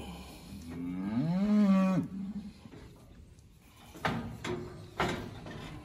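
Steer calf bawling once, a drawn-out moo of about a second and a half, followed later by two sharp knocks about a second apart.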